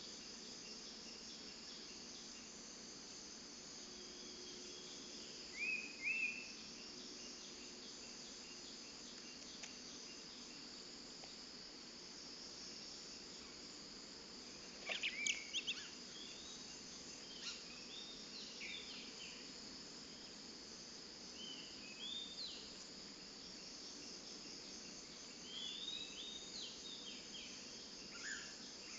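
Scattered short, upswept chirps from a female murai cacing, in brief clusters, the loudest about halfway through, over a steady high-pitched drone of crickets.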